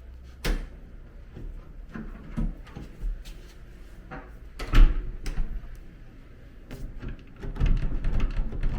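A door lever handle and lock being fitted to a door: scattered metal clicks and knocks, one loudest knock near the middle, and a denser run of rattling and knocking near the end.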